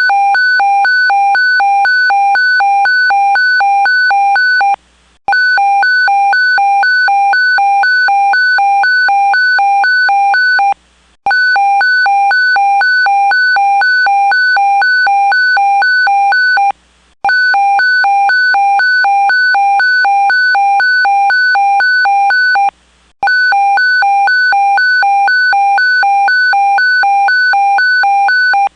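Electronic evacuation alarm sounding an earthquake alert: a loud, high electronic tone beeping rapidly, about three pulses a second, in runs of about five and a half seconds, each broken off by a brief pause and then starting again.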